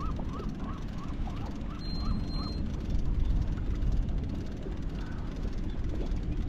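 A steady low rumble aboard a fishing boat. In the first couple of seconds, short rising-and-falling chirps repeat about three times a second, then stop.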